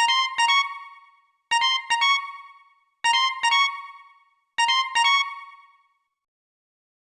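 Siemens CF110 phone ringtone: a bright two-note electronic chime, played four times about every one and a half seconds, each pair ringing out and fading away.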